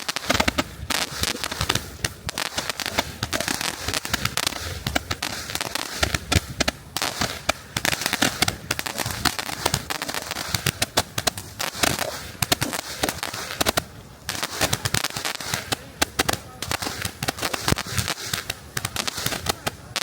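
Handheld firework going off, with dense, rapid crackling and popping that keeps on without a break.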